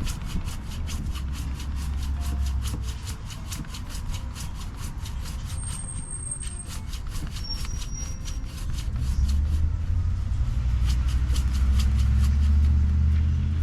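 Hand saw cutting through a plum tree branch in quick, even strokes, about four a second, with a low rumble underneath that grows louder in the second half.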